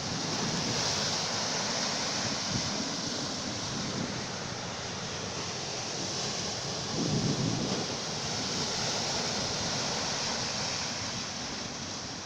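Sea waves washing steadily, with wind buffeting the microphone; a louder low gust or surge comes about seven seconds in.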